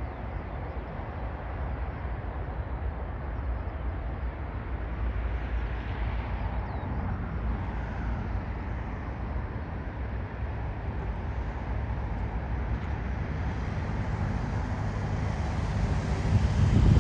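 Jet airliner on final approach to land, its engine noise building slowly, with wind buffeting the microphone and a heavy gust near the end.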